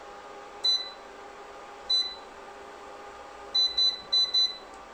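Induction hob's touch-control panel beeping as it is switched on and its power set to bring a pot to the boil: two single short high beeps, then four quick beeps close together near the end.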